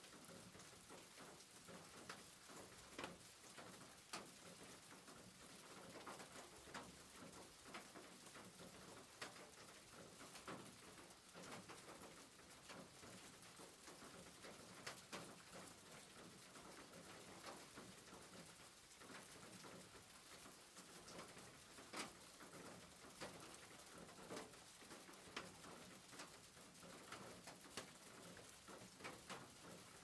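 Faint steady rain, with many individual drops heard as sharp ticks and splashes at irregular spacing over a soft hiss.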